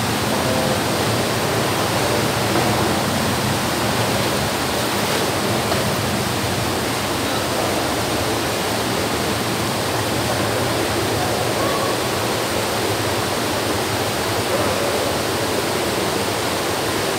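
Steady rushing wash of swimming-pool water churned by several swimmers.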